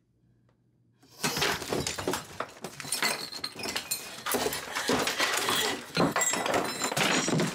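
Glass and other objects smashing and clattering as things are knocked off a dresser and thrown, a dense run of crashes that starts suddenly about a second in and carries on.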